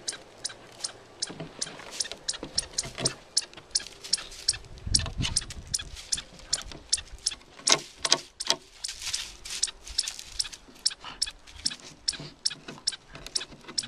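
Small terrier sniffing and gnawing at a gap between wooden boardwalk planks. Sharp, irregular clicks of teeth and claws on wood come several times a second, with a few heavier snuffling breaths in the middle.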